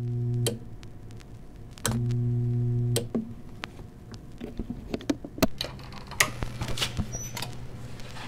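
Two held low bass notes at the same pitch, each about a second long, then a run of scattered sharp clicks and knocks.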